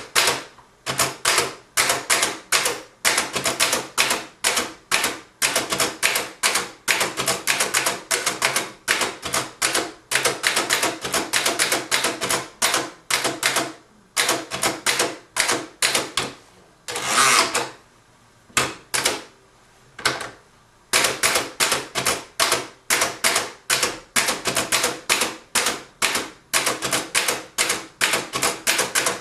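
Keys of an 1892 Empire No.1 thrust-action typewriter being typed, sharp clacks at about three a second. The typing is broken once by a longer rasp past the middle, then a pause of a few seconds before it picks up again.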